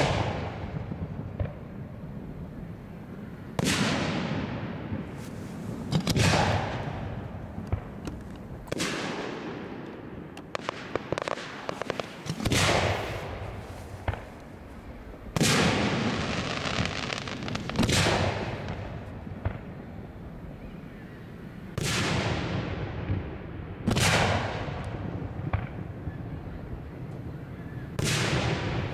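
Aerial firework shells bursting overhead, about ten booms, one every two to four seconds, each trailing off in an echo. A short spell of crackling comes about eleven seconds in.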